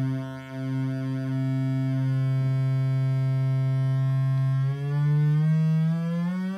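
Built-in VCO of the LABOR DIY synth board sounding a steady low buzzy tone. About three-quarters of the way in its pitch starts gliding upward as the frequency knob is turned.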